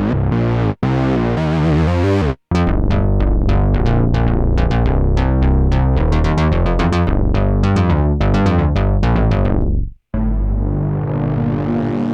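Moog Muse eight-voice analog polyphonic synthesizer playing. A held patch breaks off briefly twice, then a fast run of short, plucked notes that die away quickly follows. After a short break near the end, a new held chord comes in and slowly brightens.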